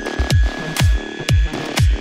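Electronic dance music with a steady deep kick drum about twice a second.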